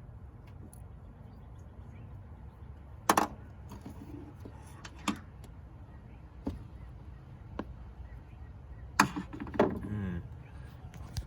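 Scattered clicks and knocks of hand tools and catch-can parts being handled while the hose clamps are undone and the can is taken off its mount. The loudest knocks come about three seconds in and again about nine seconds in, the second followed by a short cluster of clinks, over a steady low rumble.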